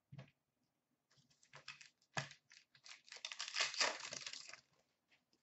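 Hands handling 2016-17 Upper Deck SP Authentic hockey cards and packs: scattered clicks and taps of cards, then about a second and a half of dense crackling rustle as the cards are riffled through.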